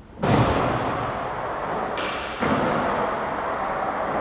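Skateboard wheels rolling fast on concrete. It starts with a sudden thud of the board meeting the ground about a quarter second in, and the rolling noise jumps up again about two seconds in.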